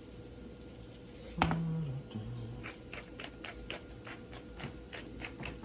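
A knock about a second in, then a run of quick, irregular clicking rattles, several a second: salt being shaken out over raw steaks.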